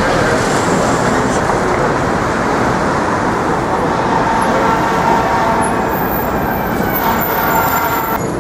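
Steady city street traffic noise from passing cars and buses. In the second half a vehicle adds a steady whine that stops shortly before the end.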